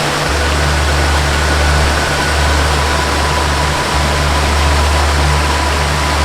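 Steady rushing of a waterfall, with a slow ambient melody of long held tones underneath: a deep sustained bass note and faint high held notes.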